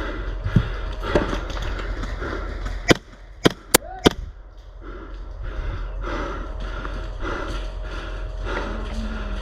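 Airsoft gun fired in four quick sharp cracks about three seconds in, over a steady rhythmic rustling.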